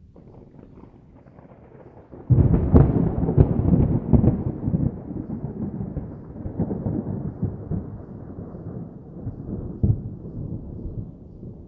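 Thunder: a faint low rumble, then a sudden loud clap about two seconds in with several sharp cracks, rolling on in a long rumble that slowly fades, with one more short loud crack near the end.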